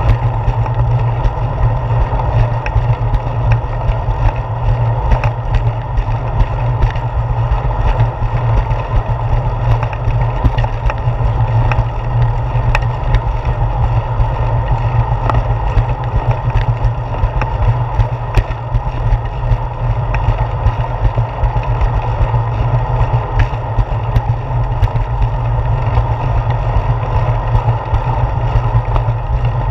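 Steady low rumble of wind and ride vibration on a handlebar-mounted GoPro Hero 4 as a bicycle rolls along a concrete path, with light scattered ticks.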